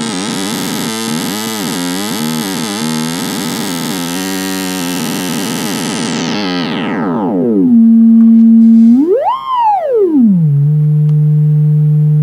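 Serge New Timbral Oscillator's sine output, chaotic through a feedback loop with a slope generator dividing its frequency, gives a harsh, buzzy tone full of overtones that warbles unevenly. About six to seven seconds in, the harshness drains away to a plain steady tone, which sweeps up in pitch and back down near the end, settles lower, and is louder.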